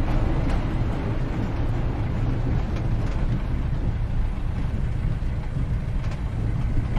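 Streetcar running: a steady low rumble with a few faint clicks.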